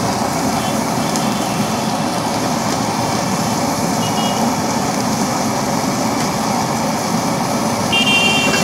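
Steady, loud roar of a stall's gas burner under the wok, mixed with street traffic. Short high electronic beeps sound about four seconds in and again near the end.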